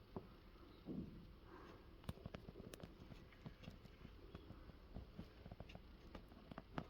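Near silence with faint, scattered small clicks and taps of handling.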